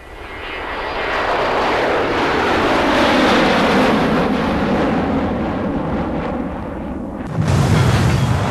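Cartoon rocket sound effects: the rushing noise of a rocket engine that swells and slides down in pitch as it flies, then a sudden loud explosion about seven seconds in.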